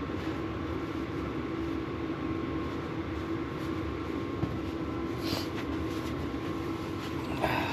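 Steady mechanical hum holding a constant low tone, with a couple of light clicks about five seconds in and near the end.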